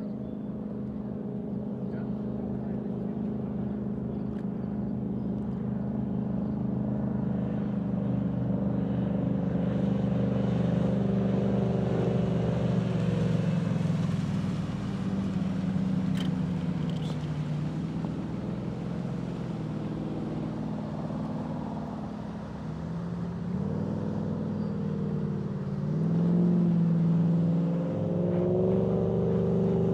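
Hot Rod Conspiracy Wavecrusher V8 personal watercraft engine running at speed on the water, getting louder as it passes close by about halfway through. Its pitch dips and climbs again near the end.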